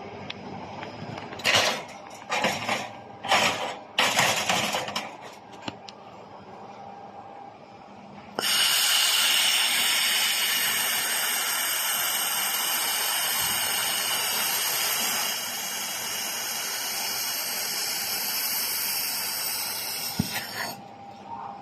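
Several handling clatters, then the 4-in-1 laser welding machine's head firing with a steady hiss of gas that starts abruptly about eight seconds in and cuts off about a second before the end.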